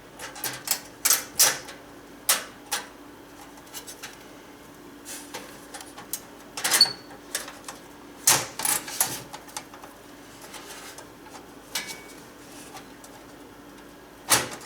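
Irregular clicks and light metallic clinks of screws, a screwdriver and small metal parts against a steel PC case while a motherboard is being fitted, some clicks in quick clusters and one or two with a short ringing tone. A loud knock comes near the end.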